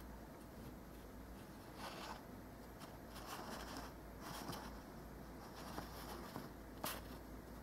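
Faint handling sounds: soft paper-like rustles and scrapes, with one sharper click or tap about seven seconds in, over a low steady hum.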